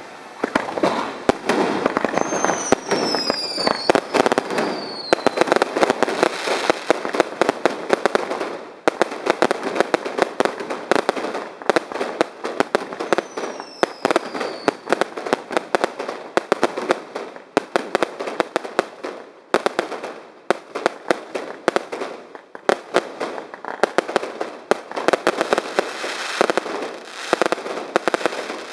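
Fireworks display: a rapid, continuous barrage of bangs and crackling from bursting shells. Several falling whistles come a few seconds in and again about halfway.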